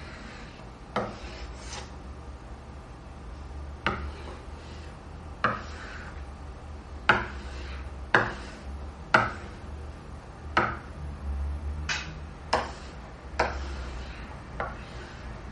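A stylus tapping and scraping on a hard tabletop surface: about a dozen sharp taps at irregular intervals, each followed by a short scrape, over a steady low hum.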